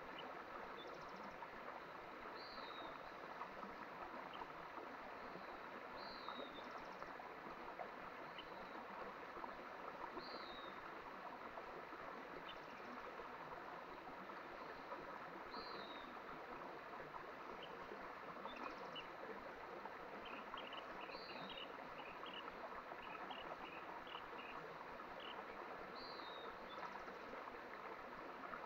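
Mountain stream flowing steadily, with a bird repeating one short, high, falling call every few seconds and a scatter of faint chirps in the latter half.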